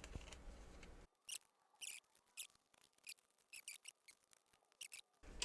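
Faint, scattered short squeaks and scrapes of silicone-insulated wires being pulled through tight holes in a 3D-printed plastic part; the silicone insulation drags rather than sliding freely.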